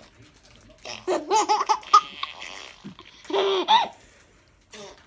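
A 9-month-old baby boy laughing in two bursts of rapid belly laughs, one about a second in and another near the three-second mark.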